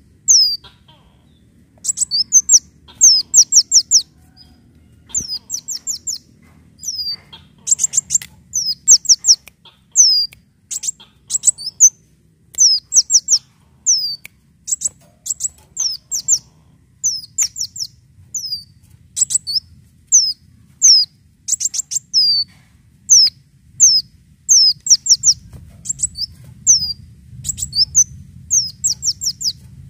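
A kolibri daun (sunbird) singing a string of high, thin, falling notes. The notes come singly or in quick runs of three to five, about every second.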